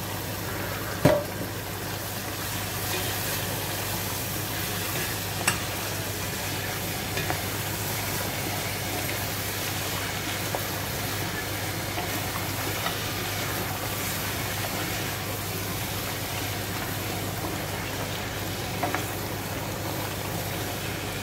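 Chopped onions, peppers and blended carrot sizzling steadily in butter and olive oil in a stainless-steel pot while a wooden spoon stirs them. The spoon knocks sharply against the pot about a second in and again about five and a half seconds in, with a few lighter taps later.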